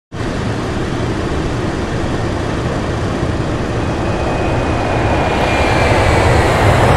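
Steady rush of a jet's engine and airflow noise heard aboard on final approach, with a strong low rumble, slowly growing louder. A faint high whine, sliding slightly lower, comes in about halfway through.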